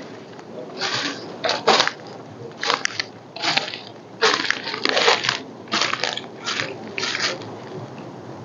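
Footsteps crunching on the woodland floor, about ten steps at an even walking pace.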